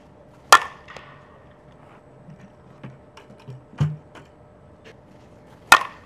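Fastpitch softball bat striking pitched balls: two sharp, ringing cracks about five seconds apart, with a few fainter knocks in between.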